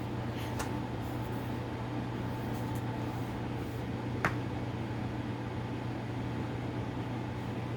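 Steady low hum and hiss of room background noise, with a faint steady high tone, and a single sharp click about four seconds in.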